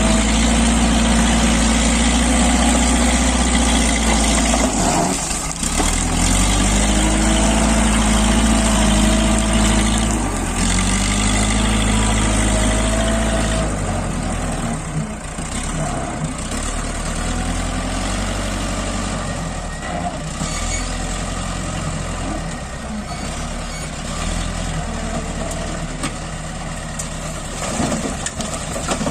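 JCB backhoe loader's diesel engine working under load, its speed rising and falling as the front bucket pushes and scoops broken rock. Near the end, rock and dirt tip from the bucket into a tractor trolley.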